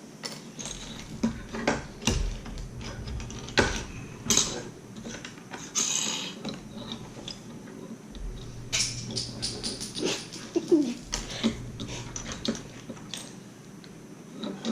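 Plastic Lego bricks clicking and clattering irregularly as pieces are rummaged through and snapped together.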